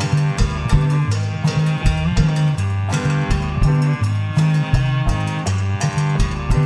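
Live rock band playing an instrumental passage: a steady drum-kit beat under a moving bass line and guitar.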